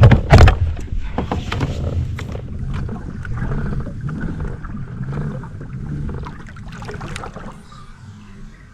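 A man's low, drawn-out groaning of dismay, with a few sharp knocks at the start and again near the end, fading toward the end.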